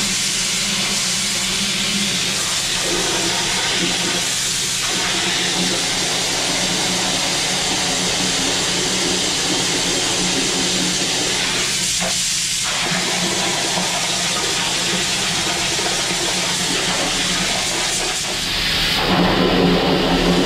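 High-pressure water jetter spraying down the concrete benching inside a sewer manhole: a steady hiss of water blasting, with a steady low hum underneath. The spray gets louder near the end.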